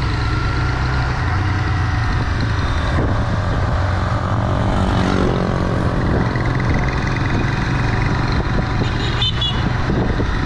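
Motorcycle on the move: a steady engine rumble mixed with wind rushing over the microphone, with no change in pace.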